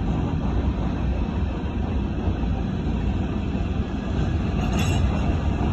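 Coal hopper cars of a freight train rolling past: a steady low rumble of steel wheels on rail, with a brief high squeak near the end.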